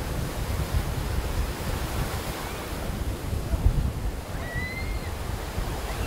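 Rough sea surf breaking and washing in, with strong wind buffeting the microphone in a low rumble. A short, high call rises and holds briefly about four and a half seconds in.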